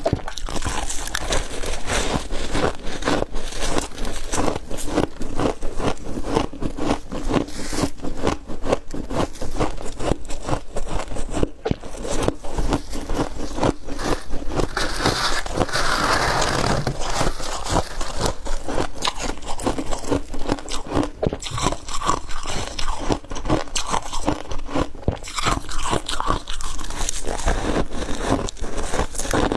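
Crunchy ice being chewed, a continuous stream of crisp crunches, with a brief rougher scrape-like burst about halfway through.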